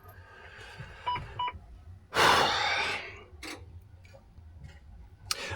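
Two short electronic beeps from the Volvo VNL truck's dash as the key is turned for a start attempt, followed by a loud hiss lasting under a second. No engine running is heard.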